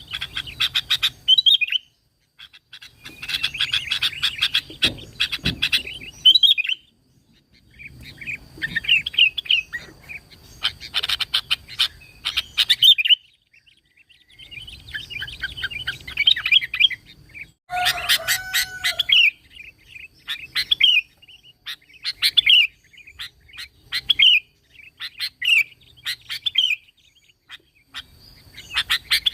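Sooty-headed bulbul (kutilang) singing: bouts of quick, chattering chirps a few seconds long with short pauses between, and a lower call a little past the middle. Near the end the song breaks into single short phrases about one every second and a half.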